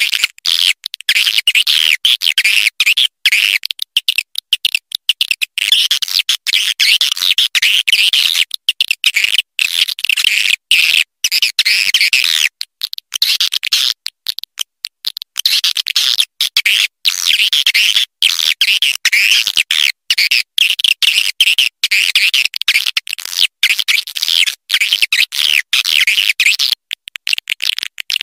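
Edible-nest swiftlets twittering in a dense chorus of high chirps, broken by many brief dropouts into silence: a swiftlet lure call recording, the kind played to draw swiftlets into a nesting house.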